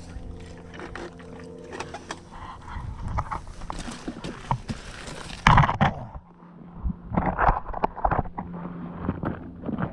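Water splashing and handling noises as a large fish is landed, with a sharp knock about five and a half seconds in, over a faint steady low hum.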